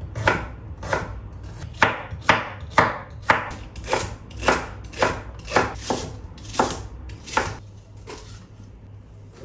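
Chef's knife chopping vegetables on a wooden cutting board: a dozen or so sharp cuts at about two a second, stopping near the end.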